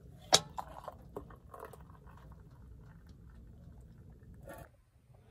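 A sharp metal clink about a third of a second in, then a few lighter knocks, as a metal pot is tipped and liquid is poured in a thin stream into an enamel mug. A low steady rumble sits underneath and cuts off suddenly near the end.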